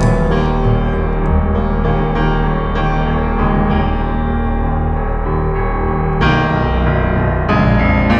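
Slow background piano music, sustained chords struck afresh every couple of seconds.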